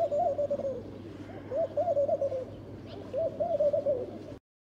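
A dove cooing: three soft, low, multi-note phrases, each about a second long, with the sound cutting off abruptly near the end.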